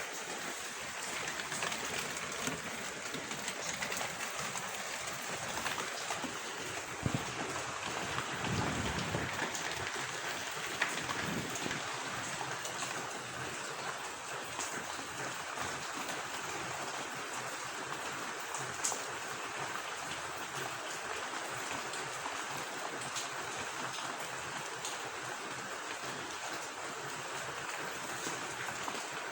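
Steady rain falling, an even hiss with scattered sharper drop hits and a few louder taps. A brief low rumble comes about eight seconds in.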